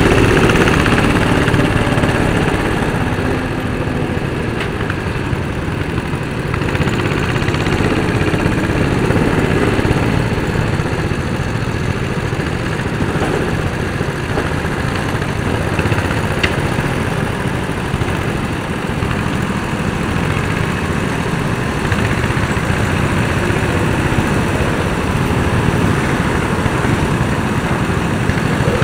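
Small go-kart engines running at low speed, several karts at once, with a steady even drone.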